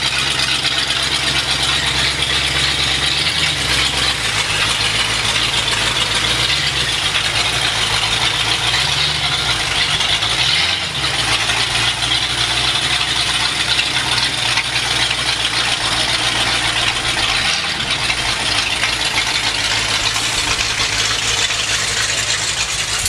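V8 engine of a late-1960s Plymouth muscle car idling and running at walking pace, a low steady rumble that rises briefly in pitch a few times as it is given a little throttle. A steady hiss runs underneath.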